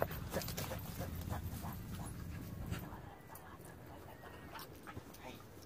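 A dog panting faintly, under a low rumble that fades out about three seconds in.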